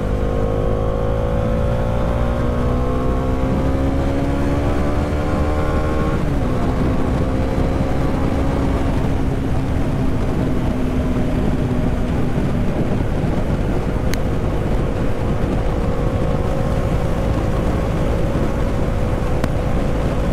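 Motorcycle engine under way. It rises in pitch as it accelerates, drops at a gear change about six seconds in, then holds a steady cruise, over heavy wind rush on the microphone.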